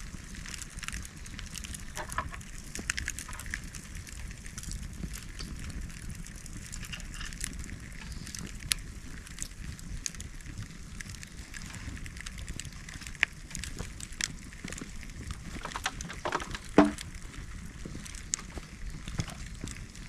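Bonfire of cut bamboo crackling, with scattered sharp pops and one louder pop about three seconds before the end.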